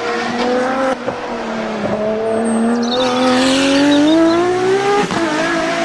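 Racing car engine sound, revving with its pitch climbing slowly over about five seconds and breaking briefly near the end.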